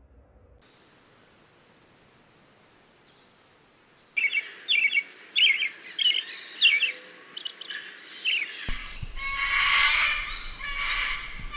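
Birds calling in three short recordings: first a fast series of high, sharp repeated notes, about two to three a second; then quicker, lower chirps; then, near the end, a dense chattering chorus over a low rumble.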